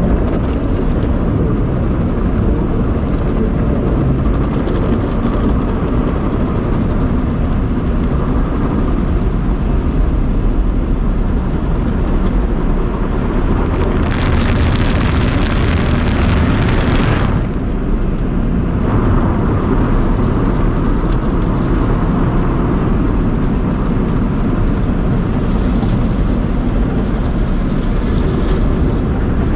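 Automatic tunnel car wash equipment running with a loud, steady rumble. About halfway through there is a three-second burst of hissing spray, and a thin high whine near the end.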